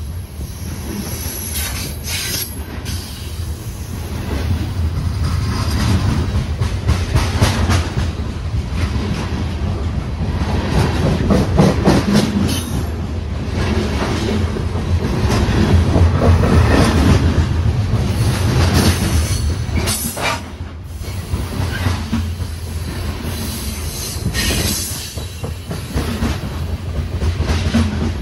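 Coal cars of a freight train rolling past close by: a steady rumble of steel wheels on rail with irregular clicking and clatter as the wheels cross rail joints.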